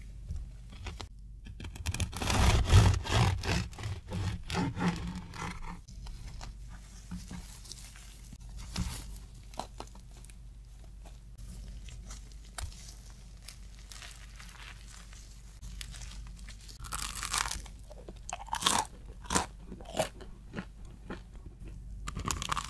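Crisp crust of a whole wheat baguette crackling and crunching as gloved hands break it apart, loudest in a dense run of crackles a couple of seconds in, then scattered lighter crunches.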